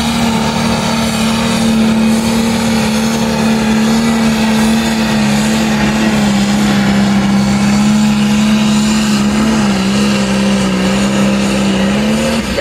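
John Deere pulling tractor's diesel engine running flat out under load as it drags the sled, revs held high around 3,500 rpm with a steady, loud engine note that sags slightly about ten seconds in.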